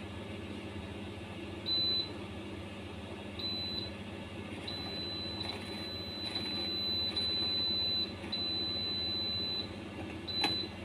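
Electronic oven control beeping with one steady high pitch while it is being set and started: several beeps of different lengths, one held for about three seconds, over a steady low hum.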